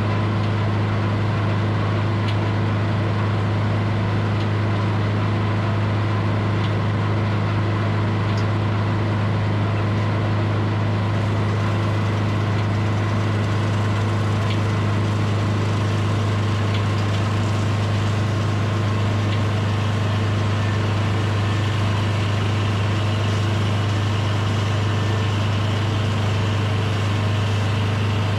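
Edmiston hydraulic sawmill's engine running steadily at an even speed, a loud low hum that does not change.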